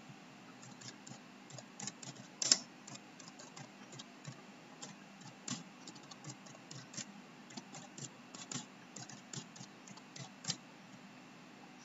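Typing on a computer keyboard: faint, irregular keystrokes, with one sharper click about two and a half seconds in.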